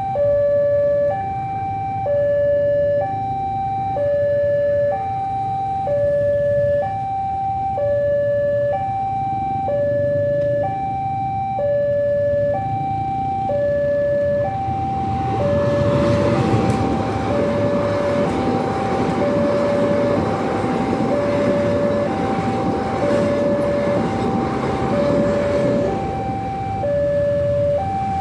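Railway level-crossing warning alarm sounding a two-tone electronic signal, alternating high and low about once a second, the warning that a train is coming while the barriers are down. From about halfway, motorcycle and small-truck engines of the waiting traffic grow louder under it.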